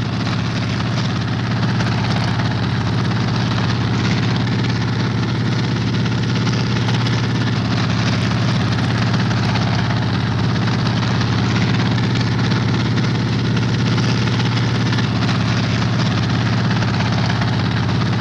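Helicopter hovering: a steady, unbroken engine and rotor noise with a low hum.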